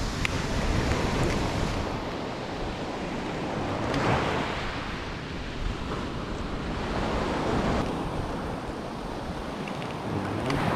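Sea surf breaking on a pebble beach, the wash swelling and fading every few seconds, loudest about four seconds in.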